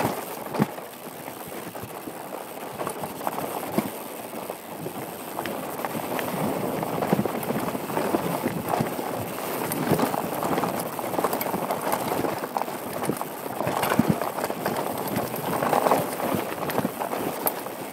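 Mountain bike tyres rolling fast over rocky dirt and gravel singletrack: a steady crunching rush with frequent clicks, knocks and rattles from the bike as it runs over rocks, heard through a helmet-mounted camera.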